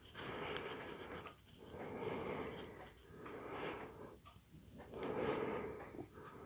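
A person breathing audibly: four slow, noisy breaths, each about a second long, with short pauses between them.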